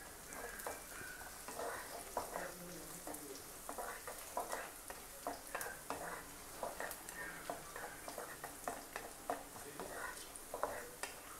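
A wooden spatula stirs and scrapes chopped onions and dried red chillies around a kadai in repeated short strokes, over a faint sizzle of the oil frying them.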